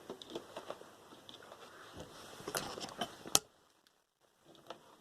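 Scrap computer parts being handled: light clicks and taps of small plastic and metal pieces, building to a few sharper clicks and one loud snap about three and a half seconds in, then a brief dead silence.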